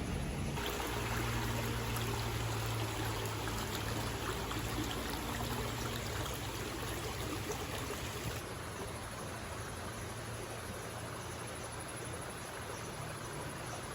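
River water flowing steadily. The rush turns brighter about half a second in and duller again about eight seconds in, with a faint low hum under the first half.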